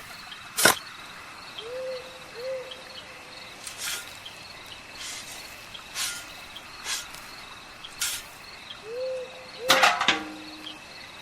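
Crickets chirping steadily, with an owl-like hoot given as two quick notes about two seconds in and again near the end, over scattered sharp clicks and knocks.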